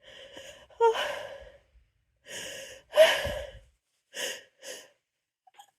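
A person's sneeze buildup: a string of breathy gasps and drawn-out 'oh' sounds, the loudest about a second in and about three seconds in, then two short catches of breath. The tickle builds but no sneeze comes.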